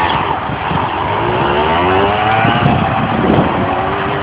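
Small dirt bike engine revving as the bike pulls away, its pitch climbing, dropping at a gear change about three seconds in, then climbing again.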